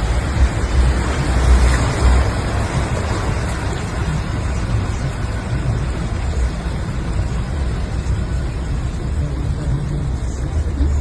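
Steady road traffic noise with a deep, uneven rumble underneath; the noise swells about two seconds in, as of a vehicle passing.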